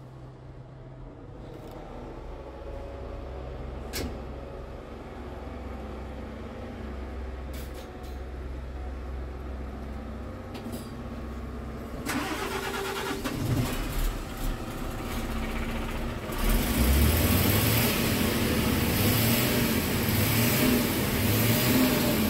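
Scania R truck's diesel engine running, heard from inside the cab. About halfway through, a rushing noise comes in, and it grows louder a few seconds later.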